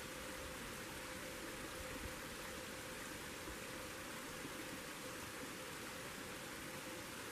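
Steady, even rushing of a small mountain creek.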